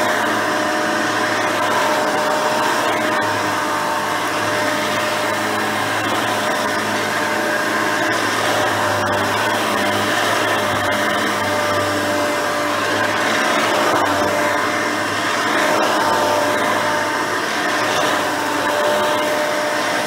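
Hoover Elite 350 upright vacuum cleaner, with a 5-amp motor, a seven-blade fan and a dual-row bristle brush roll, running steadily as it is pushed over a rug. The motor makes a steady whir with a couple of held tones in it.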